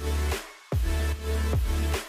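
Electronic dance music with a heavy bass line, dropping out briefly about half a second in.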